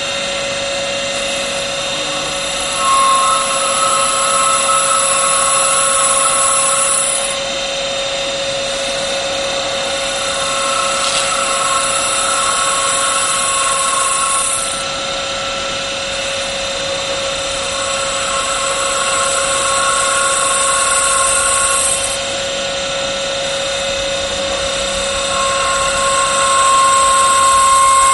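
Automatic CNC wood-turning lathe running with a steady motor whine. A higher-pitched whine comes in for about four seconds roughly every seven seconds as the machine repeats its automatic cutting cycle.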